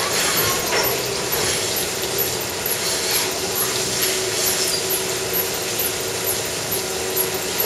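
Milking parlour machinery running steadily: an even mechanical hum with faint high ticks about twice a second, as the milking clusters draw milk from the cows.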